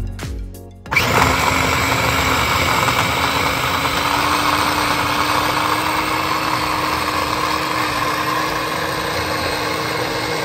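Black & Decker electric food chopper's motor running under load as its blade chops shrimp, starting suddenly about a second in and running steadily, its hum creeping slightly higher in pitch.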